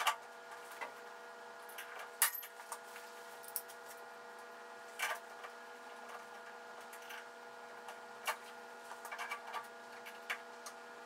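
Sparse light clicks and knocks of a part being fitted by hand on the upper housing of a Grizzly G0513X2F band saw, at uneven intervals, with the sharpest about two seconds in. Under them runs a faint steady hum.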